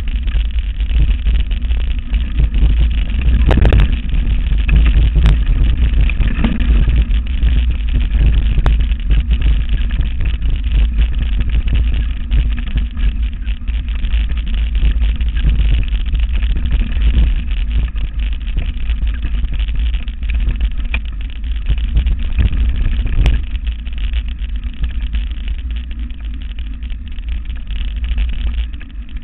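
Heavy wind buffeting on the microphone and the rumble and rattle of a mountain bike rolling fast over a rough dirt trail, with a few sharp knocks from bumps.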